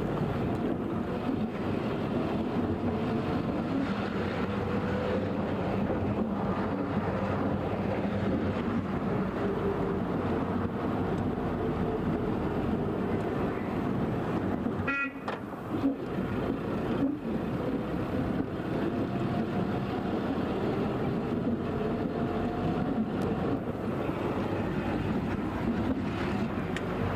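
Street traffic: vehicle engines running with car horn toots, and a brief dropout and knock about halfway through.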